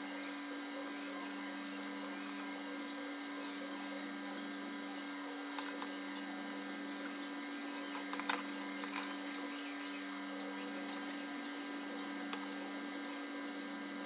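Steady electrical hum with a faint hiss, and a few faint light clicks as wires and a soldering iron are handled.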